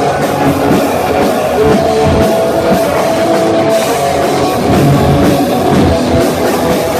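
A heavy metal band playing live and loud: distorted guitars over a fast drum kit.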